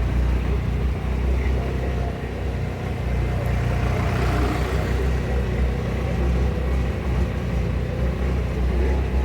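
Small farm vehicle's engine running steadily while driving, a low rumble.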